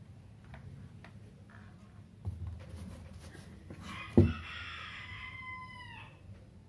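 A rooster crows once, one long call that drops in pitch as it ends. Just after the crow begins there is a sharp knock, the loudest sound, as the drone is handled on the desk; a softer thump comes a little earlier.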